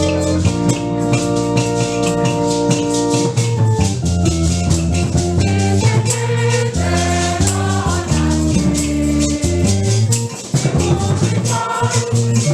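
Church gospel music: a shaken rattle keeps a steady, fast beat over held organ chords, with voices singing.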